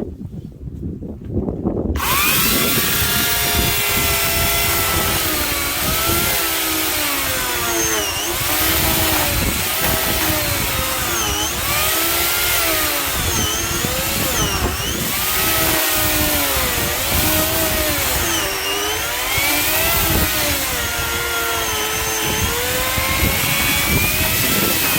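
Electric saw starting up about two seconds in and cutting through a firewood log. Its motor pitch repeatedly dips and recovers as the blade bites into the wood and bogs under the load.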